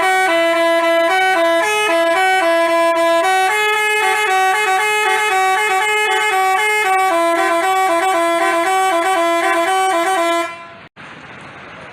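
Telolet basuri musical bus horn playing a quick tune of short notes stepping up and down, which cuts off near the end.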